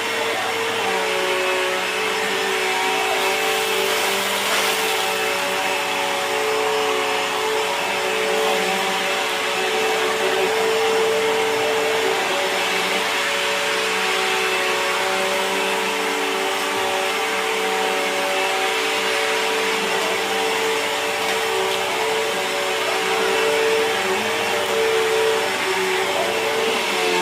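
Bissell vacuum cleaner running steadily with a freshly replaced brush-roll belt, tested on crumbs: an even motor hum with a hiss of suction.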